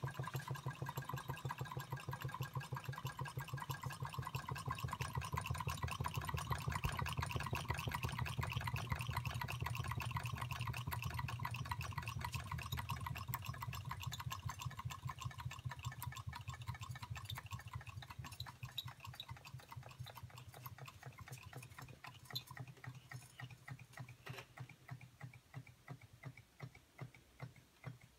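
A pair of Roland Reichelt Adler model Stirling engines running together, their walking-beam mechanisms and flywheels making a fast, even clatter of clicks over a low hum. Over the last ten seconds or so the clicking grows quieter and more spaced out.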